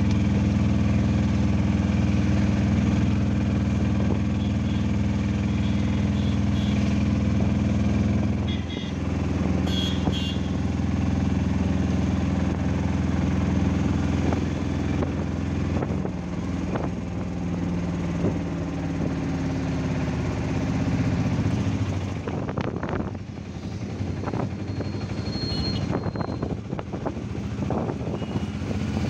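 Auto-rickshaw engine running as it drives through traffic, heard from inside the cab. The engine note drops about nine seconds in and becomes more uneven in the last several seconds, with a few brief clicks.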